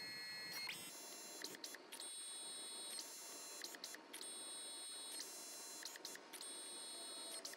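Kodak instant camera-printer printing a photo: its paper-feed motor whines in about six runs of roughly a second each, with small clicks between, as the paper is fed out and drawn back in.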